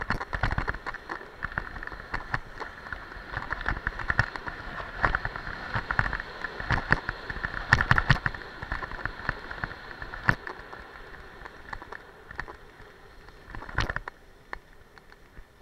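Skis hissing and scraping over groomed snow on a downhill run, with many sharp clicks and knocks throughout. The sound dies down about fourteen seconds in as the skier slows to a stop.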